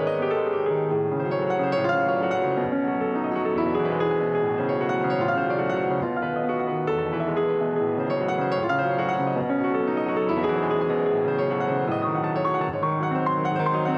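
Acoustic piano playing a piece of music, a continuous stream of notes at an even loudness.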